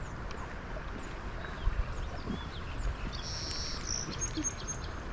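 Steady rush of river water around the wading anglers, with a couple of low thumps about two seconds in and a short, high bird call a little after three seconds.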